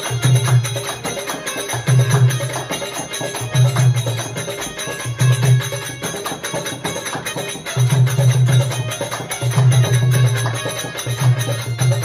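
Live devotional bhajan music with harmonium and jingling hand percussion, over a low beat that comes round about every second and a half to two seconds.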